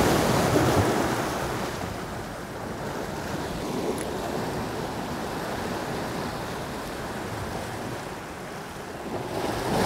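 Sea surf breaking and washing around jetty boulders. The surge is loud at first, eases off after a couple of seconds, then builds again near the end as the next wave comes in.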